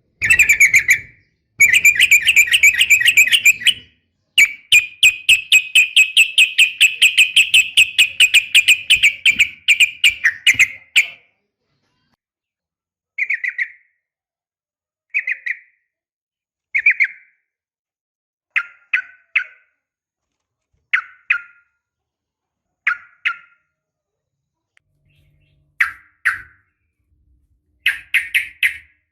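Yellow-vented bulbul calling: fast chattering runs of rapidly repeated notes for about the first ten seconds, then short clipped calls of two or three notes every couple of seconds. Sold as a female calling a male.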